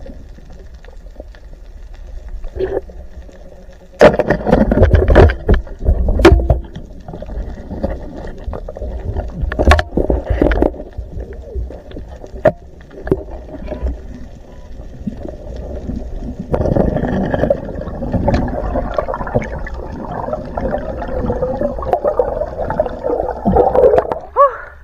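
Muffled underwater sound of water swishing and gurgling, with sharp knocks and clatters from a spear and a speared reef fish being handled on it. The loudest cluster of knocks comes about four to seven seconds in.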